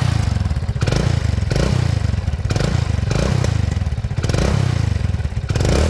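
Hero Honda Splendor's single-cylinder four-stroke engine running through an old-model Splendor silencer, the throttle blipped in short revs about once a second. The exhaust leaks at a joint on the silencer, which the owner says keeps it from making its full bass note.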